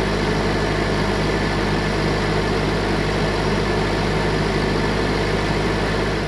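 Nettuno DUPLEX motor pump set's engine running at a steady speed, powering the submersible and surface pumps at their set duty point.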